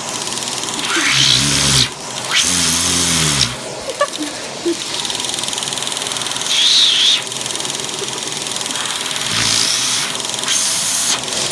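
Bagless upright vacuum cleaner running with a steady motor whine, its suction rushing louder several times as the hose end is held against and pulled away from a person's mouth. A few short, low, muffled vocal sounds come through the hose near the start and again near the end.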